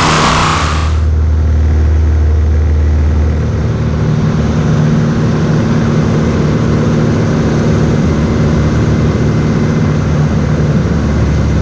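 Light aerobatic plane's piston engine and propeller droning steadily, heard from inside the cockpit. The deepest part of the note eases off about three seconds in and returns near the end.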